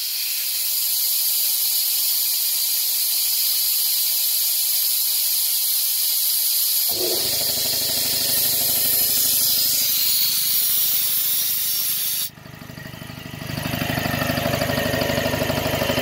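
Compressed air hissing loudly out of an air compressor tank's bleed valve as the pressure is let down. About seven seconds in, the compressor's motor and pump kick in as the pressure switch reaches its cut-in, around 125 psi. The hiss stops suddenly about twelve seconds in while the compressor keeps running, getting louder as it builds pressure.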